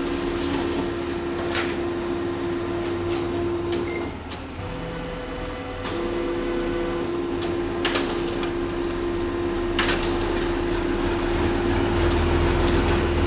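HP LaserJet M2727 multifunction laser printer running a copy job: a steady mechanical hum with a droning tone that drops out for about two seconds near the middle, and a few sharp clicks from the mechanism.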